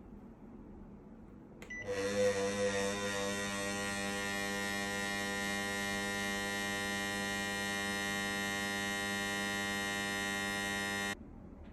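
KDK M40KS fan giving off a steady hum with many evenly spaced overtones: the rumbling noise the fan makes. It starts abruptly about two seconds in and cuts off suddenly near the end.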